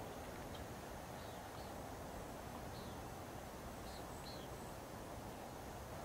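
Steady wash of ocean surf, with several short, high bird chirps scattered over it.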